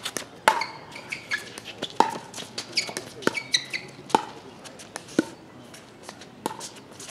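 Pickleball rally: paddles hitting the hollow plastic ball, a sharp pock about once a second.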